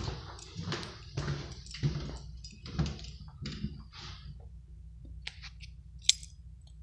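Footsteps scuffing on a hardwood floor, about two a second, fading out after about four seconds. A few sharp clicks follow near the end, the loudest about six seconds in.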